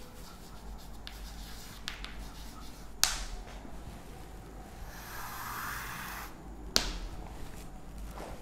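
Chalk writing on a chalkboard: faint scratching strokes, with two sharp taps of the chalk against the board about three seconds in and again near seven seconds, and a longer continuous scraping stroke between them.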